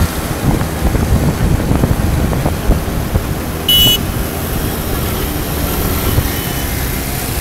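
Small moped engines running on the beach, with an uneven low rumble of wind on the microphone, and one short high-pitched tone a little over halfway through.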